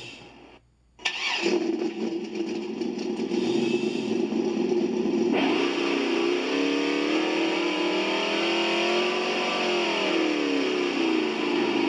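ESS-one RC engine sound module playing a simulated engine through its speaker: it briefly drops out about a second in, then idles, and about five seconds in it gets louder and revs, the pitch climbing slowly and falling back near the end.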